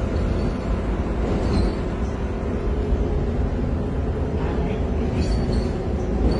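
Heuliez bus engine running with a steady low rumble, with a few brief faint high squeaks.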